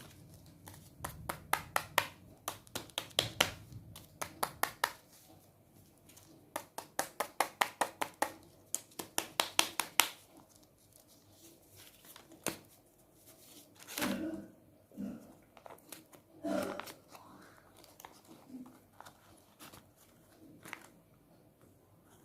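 Hands handling KitKat chocolate packaging, its plastic and foil wrappers crinkling. Runs of sharp crackling clicks fill the first ten seconds, followed by a few softer, separate rustles.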